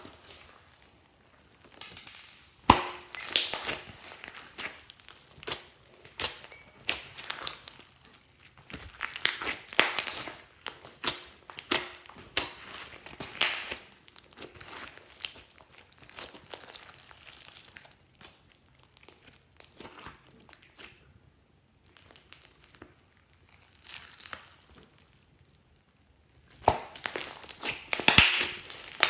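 Slime being squished and stretched by hand, with clusters of crackling and popping. A quieter stretch comes in the second half, then a louder run of crackling near the end.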